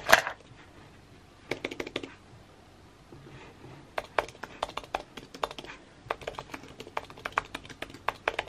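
Typing on a low-profile Apple keyboard: key clicks in short bursts, thickest in the second half. A brief loud rustling thump comes right at the start and is the loudest sound.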